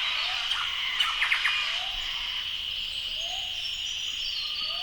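Tropical forest chorus: a steady high insect drone, a short rising call repeated about once a second, a quick cluster of bird chirps about a second in, and thin falling bird whistles near the end.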